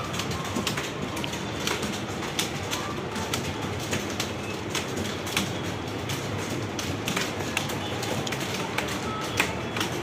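Many computer keyboards being typed on at once: a dense, irregular clatter of key clicks.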